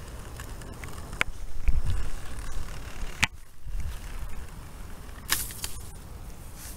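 Outdoor background rumble, with two sharp clicks about a second and three seconds in and a short rustling burst about five seconds in.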